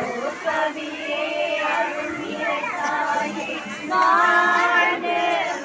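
A crowd of women singing together as a group, the singing swelling louder about four seconds in.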